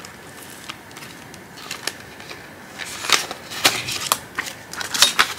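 Rustling and light clicks of a plastic cash envelope being pulled from a zippered binder pocket and paper bills being handled. It is sparse at first, then a quick run of rustles and sharp clicks about three seconds in.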